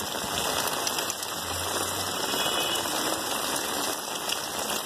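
Heavy rain pouring down and splashing on a wet, flooded paved street and sidewalk, a steady hiss.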